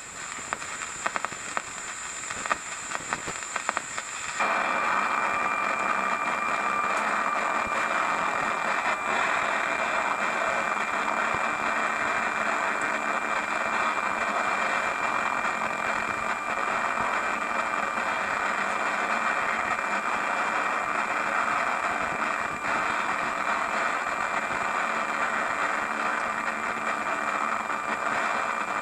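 Broadcast static on an emergency alert test's audio feed. It crackles for about four seconds, then becomes a steady hiss with a faint high whine running through it.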